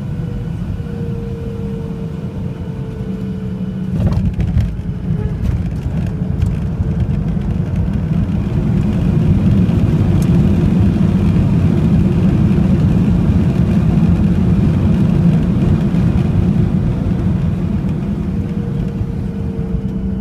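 Boeing 737-700 landing, heard from inside the cabin: a thump and rattles as the wheels touch down about four seconds in, then the engine noise swells for several seconds as reverse thrust is applied, easing off near the end as the jet slows on the runway.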